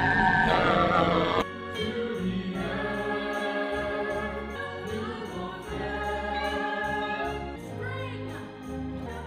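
Stage-musical cast singing as a chorus with pit-orchestra accompaniment. A loud held ensemble note cuts off about a second and a half in, and quieter sustained music carries on after it.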